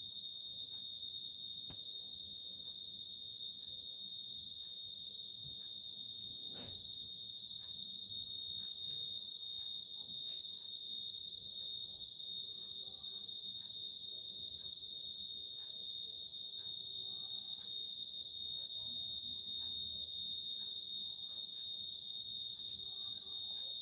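A steady, unbroken high-pitched trill or whine, one even tone, with faint soft clicks and rustling beneath it.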